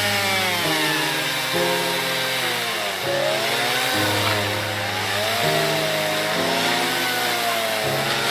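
Chainsaw cutting firewood, its pitch sagging and rising as it works through the wood. Background music with steady chords runs under it.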